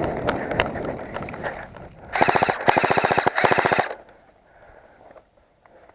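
Airsoft rifle firing on full auto: three quick bursts of rapid shots, loud and close, about two seconds in. Before them comes the rustling of movement through undergrowth with scattered clicks.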